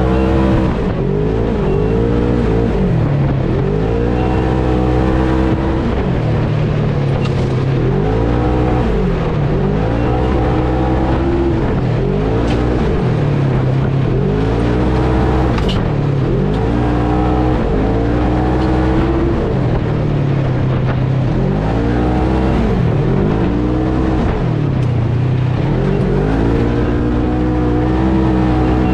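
Polaris RZR side-by-side's engine under hard throttle, its pitch rising and falling over and over about every two to three seconds as the driver gets on and off the gas.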